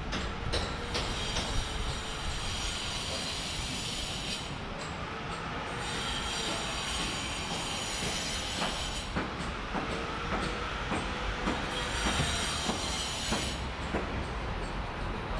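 A high-pitched metallic squealing whine that comes and goes, loudest in two spells in the second half, over steady street noise with a few sharp knocks.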